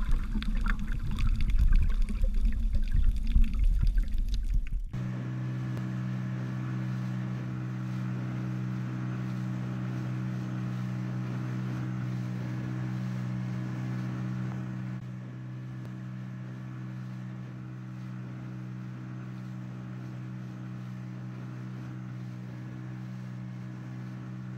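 Underwater rushing and bubbling for the first five seconds, then an inflatable dinghy's outboard motor running at a steady, unchanging pitch; its level drops a little about halfway through.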